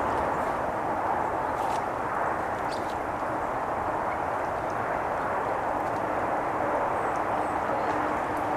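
Steady outdoor background rush, with a faint steady hum joining about six seconds in and a few faint ticks.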